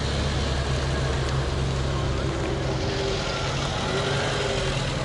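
A car engine idling steadily: an even low rumble with no revving.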